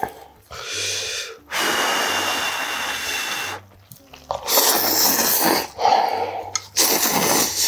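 Loud slurping of ramen noodles, air and noodles drawn in hard through the lips: one long slurp of about two seconds, then several shorter slurps close together.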